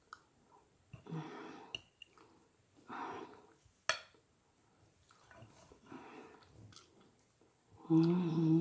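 Close-miked chewing and mouth sounds of a person eating dessert, in short separate bursts, with one sharp click about four seconds in. Near the end comes a loud hummed 'mmm' of enjoyment.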